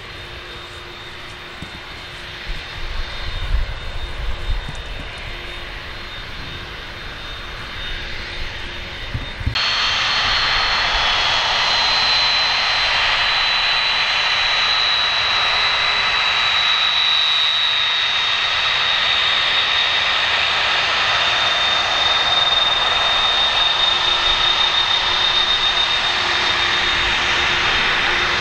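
The four CF6 (F138) turbofans of a Lockheed C-5M Super Galaxy running while the aircraft taxis: a steady jet roar with a high fan whine that sinks slightly in pitch. For the first ten seconds the jets are fainter under a low, gusty rumble, then the sound jumps suddenly louder and stays steady.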